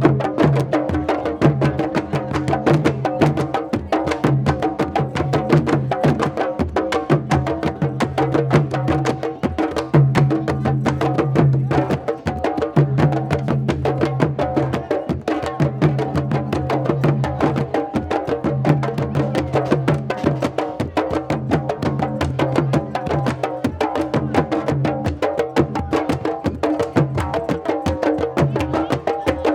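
Candombe drums playing together: a dense, even run of sharp wooden stick strokes over a low drum tone that recurs every couple of seconds.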